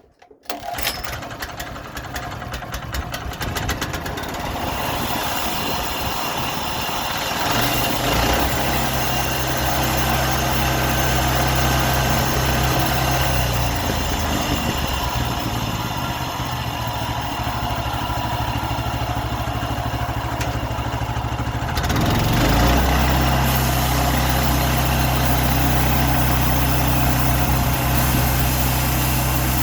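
Portable sawmill running, its engine going steadily and getting louder about eight seconds in and again a little after twenty seconds, as the mill works a birch log.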